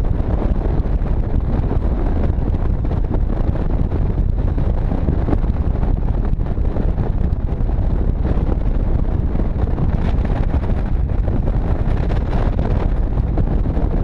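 Motorcycle riding at highway speed: heavy, steady wind buffeting on the microphone over a low rumble of engine and road.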